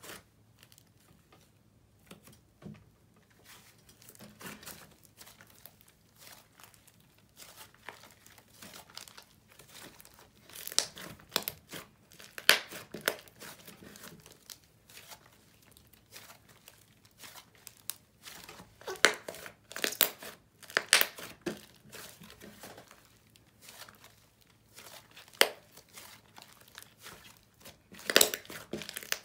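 Snow butter slime squished and kneaded by hand, giving an uneven run of small crackles and pops. The crackling grows louder in stretches about a third of the way in, two-thirds in, and near the end.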